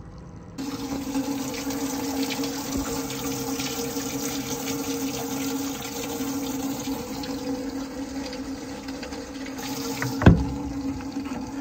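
Boat's live bait well filling from its pump: the pump starts about half a second in with a steady hum and water rushing and splashing into the well. About ten seconds in, the hatch lid shuts with a loud thump.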